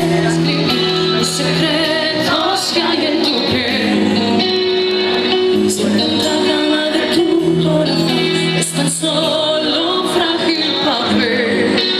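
A woman singing a pop song live into a microphone over loud amplified band music with a steady beat, in a large hall.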